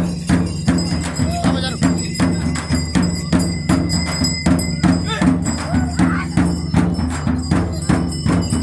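Rhythmic percussion music: drums and jingling percussion beating steadily at about three strokes a second over a low sustained tone.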